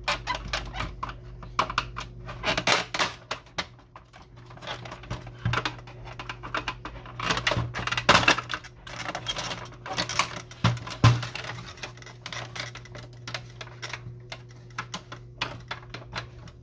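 Screwdriver prying at a plastic printer side panel: irregular clicks, snaps and knocks of plastic on plastic as the panel resists, because it is still held by a screw that was missed.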